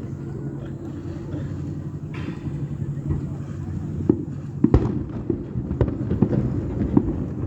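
Fireworks exploding overhead: a run of sharp cracks and bangs starting about four seconds in, the loudest near the middle, over a steady low background hum.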